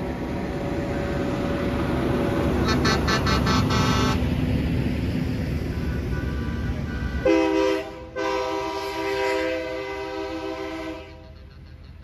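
Trucks rumbling past in a convoy. A horn gives a quick run of about six short toots about three seconds in, then a truck air horn sounds one long chord-like blast, briefly broken, for about four seconds.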